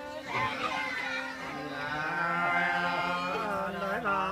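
Unaccompanied sli, the Nùng folk song of Lạng Sơn: a voice sings a slow, drawn-out line, settling about a second and a half in on one long held note.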